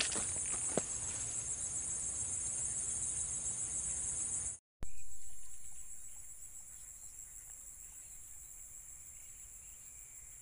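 Insects chirring in a high, steady, slightly pulsing drone, with a few sharp clicks in the first second. It drops out briefly about halfway and carries on quieter.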